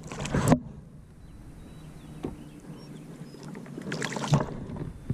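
Boat-on-the-water sounds: a sudden knock or splash right at the start and another noisy burst about four seconds in, over a steady low rumble.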